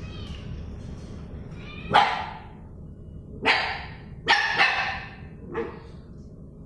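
A puppy barking in five short yaps at uneven gaps, two of them in quick succession past the middle.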